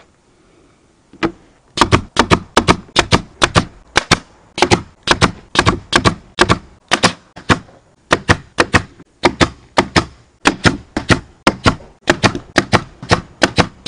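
Upholstery staple gun firing staple after staple through vinyl into the center console, a sharp shot about three times a second, some in quick pairs.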